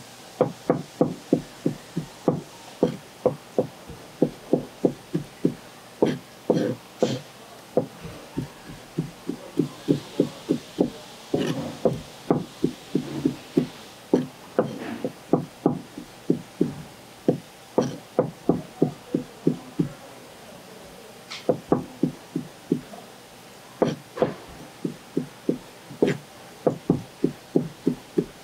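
Kitchen knife chopping searobin fillet into thin sashimi slices on a cutting board: runs of quick knocks, about four a second, broken by short pauses.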